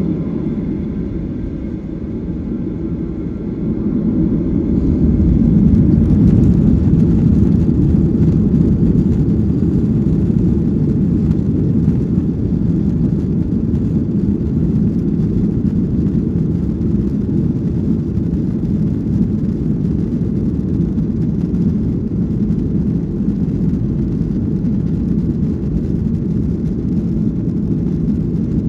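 Jet airliner's engines at takeoff power: a loud, deep, steady rumble that swells about four to six seconds in as thrust comes up. A faint whine of engine tones sits over it before the swell.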